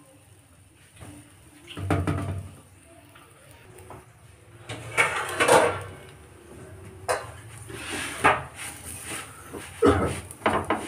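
A few separate knocks and clatters of kitchen utensils against a tawa (flat griddle) while a paratha cooks, the loudest about halfway through. Near the end a spoon scrapes across the paratha on the pan, spreading ghee.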